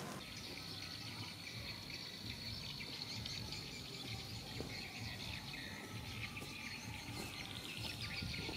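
Outdoor ambience of insects: a steady high-pitched buzz, with a few faint chirps over it.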